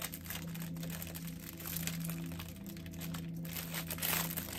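Packaging crinkling and rustling in short irregular spells as it is handled and opened, over a steady low hum.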